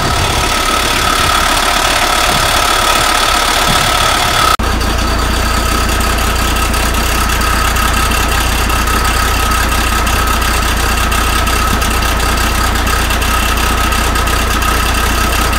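Belarus T-40 tractor's air-cooled diesel engine idling steadily. About four and a half seconds in the sound jumps at an edit, and a deeper steady hum is stronger after it.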